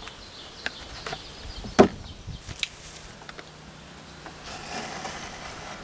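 A 6x6 wooden post block being handled on a wooden table while a strip of self-adhesive ice-and-water-shield membrane is pressed onto it: light scattered knocks, clicks and rubbing, with one sharp knock just under two seconds in.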